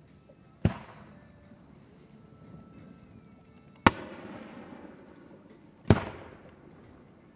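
Aerial fireworks shells bursting three times, a couple of seconds apart, each a sharp bang followed by a fading rolling echo.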